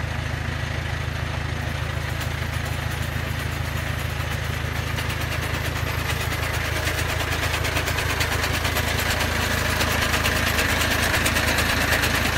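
The diesel engine of a Komatsu D20A crawler bulldozer runs steadily with a low rumble, growing louder over the second half.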